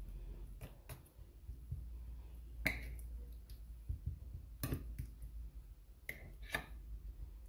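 About six sharp, light clicks and taps at irregular intervals, the loudest about a third and two-thirds of the way in. They come from handling a baking dish of chicken pieces being coated in a mayonnaise-and-chutney marinade, over a low steady hum.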